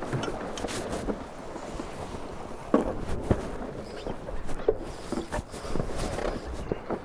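Tornado catamaran jibing around a racing mark: irregular knocks and thumps from the crew and gear on the boat over steady wind and water noise, the sharpest knocks a little under three seconds in and again about half a second later.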